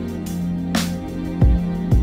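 Background music with a steady drum beat over a held bass note, with a crash-like hit about three-quarters of a second in.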